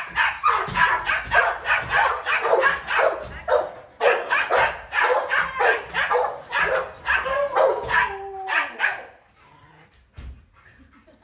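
A dog barking rapidly and without a break, about three to four barks a second. There is a short falling whine about eight seconds in, and the barking stops about nine seconds in.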